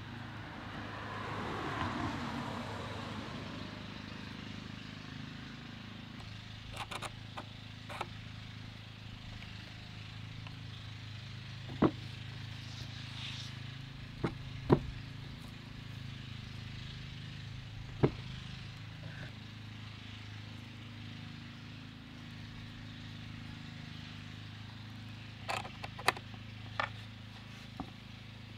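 Sharp metallic clicks and taps, singly and in small clusters, from skateboard bearings and wheels being fitted by hand onto the truck axles. A car passes early on, and a steady low hum sits underneath.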